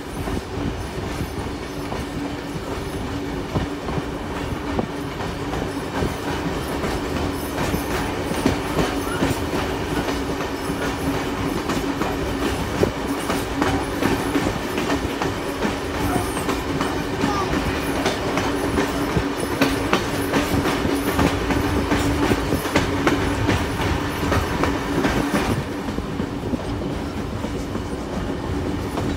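Passenger carriages of a heritage train hauled by steam locomotive 3001 rolling along, heard from on board: wheels clicking over rail joints over a steady running hum.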